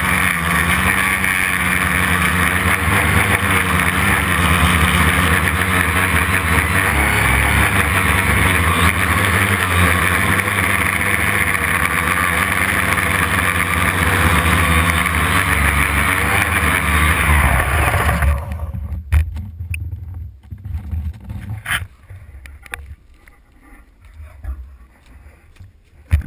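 Homemade quadcopter's brushless motors and propellers running steadily in flight, heard up close from a camera on the arm, then cutting off suddenly about two-thirds of the way through. What follows is much quieter, with scattered clicks and knocks.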